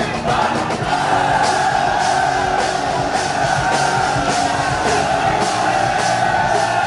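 Live rock music played loudly: a steady drum-and-cymbal beat at about two hits a second under a long held high note.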